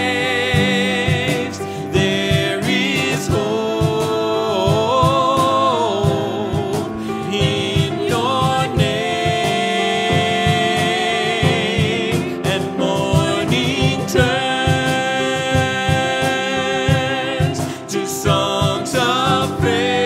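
Worship band music: a male lead voice with a female voice singing a contemporary worship song over band accompaniment with a steady beat.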